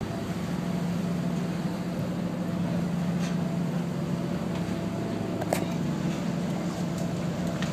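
Ship's engine running with a steady low hum, with a few faint clicks, the clearest about five and a half seconds in.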